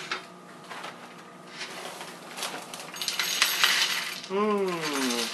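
Dry Lucky Charms cereal poured from the box into a bowl: a dense stream of small clicks as the pieces hit the bowl, starting about a second and a half in and lasting a few seconds. Near the end, a short falling hum from a man's voice.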